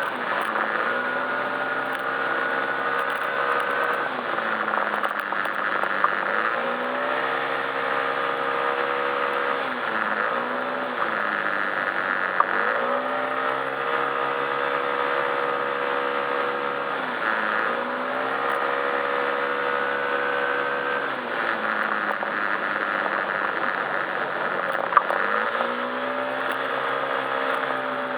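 Yamaha Majesty S scooter's single-cylinder engine and CVT under riding load, the revs rising and holding, then falling off every few seconds as the throttle is opened and closed, with a few sharp ticks.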